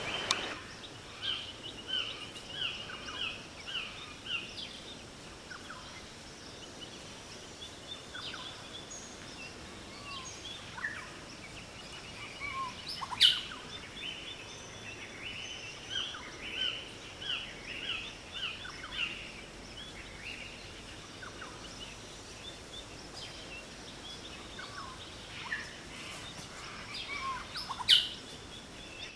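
Tropical rainforest birdsong: many birds calling and chirping over a faint background hum of the forest, with two sharp, loud calls that stand out, one midway through and one near the end.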